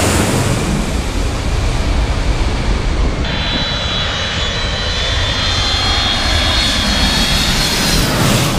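Jet airliners on low final approach passing overhead: loud, steady engine rumble with a high turbine whine. About three seconds in the sound cuts abruptly to another approaching jet, whose whine rises slightly.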